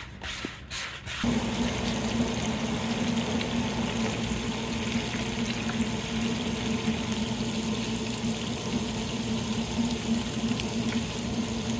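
Hot oil in a deep fryer bubbling and sizzling steadily as cornmeal-breaded gar pieces fry, with a steady low hum underneath; it comes in about a second in.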